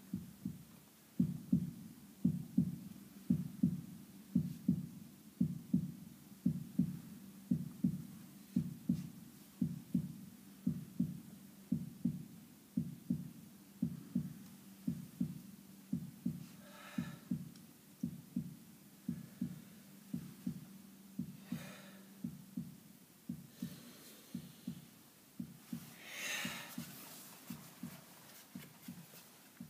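A recorded heartbeat sound effect: steady, evenly repeating low lub-dub thumps. A few short bursts of noise cut in during the second half, the loudest a little before the end.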